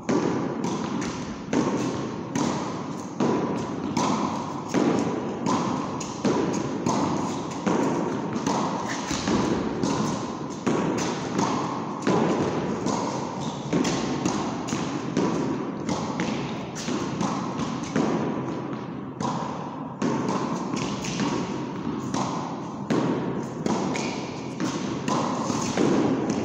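Two tennis balls kept going against a concrete wall in a fast solo rally: racket strikes, wall hits and bounces on the concrete floor follow one another several times a second, echoing in a large bare hall.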